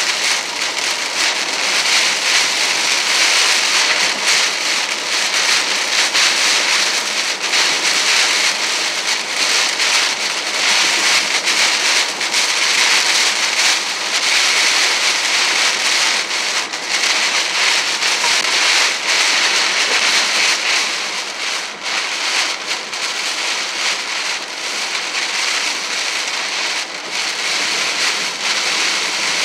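Heavy rain hitting a car's windshield and roof, heard from inside the moving car as a dense, steady patter of drops over the hiss of tyres on the wet road. It eases slightly about two-thirds of the way through.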